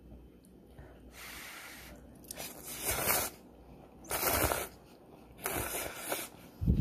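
Instant ramen noodles being slurped: a soft hiss about a second in, then three loud slurps a little over a second apart, with a short low thud at the very end.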